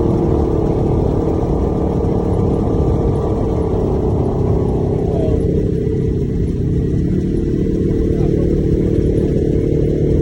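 Side-by-side UTV engine running under way, a loud steady drone with low rumble; a rushing noise above it dies away about halfway through.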